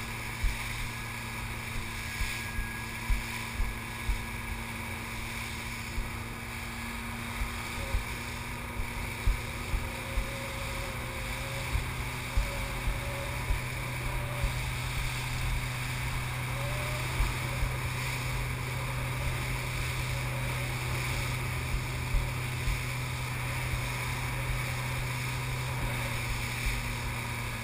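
Fast rescue boat's engine running steadily at speed, its note stepping up slightly about eleven seconds in, over rushing water and spray with repeated slaps of the hull against the swell and wind on the microphone.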